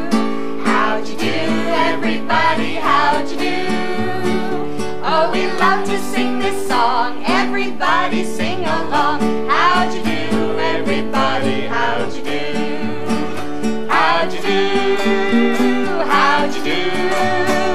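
Upbeat folk-style song with acoustic guitar accompaniment, the guitar plucked and strummed in a bouncy rhythm.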